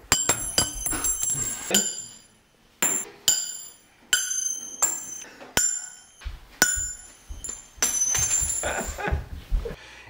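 About a dozen sharp metallic clinks with a short bright ring, spread irregularly: a small bimetal thermal snap disk tapping against a stainless steel pot as the pot is handled.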